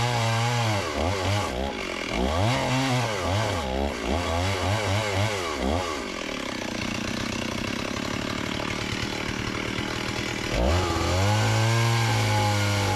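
Chainsaw engine revved up and down repeatedly, dropping to a lower steady idle for a few seconds, then revved up sharply and held high near the end.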